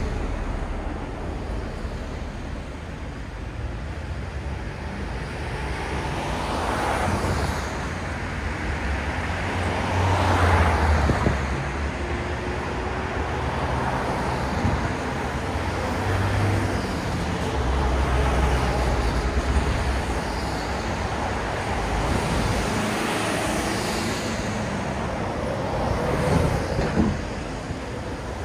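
Road traffic at a city intersection: vehicle engines and tyres passing, the noise swelling and fading as each goes by, loudest about ten seconds in and again near the end.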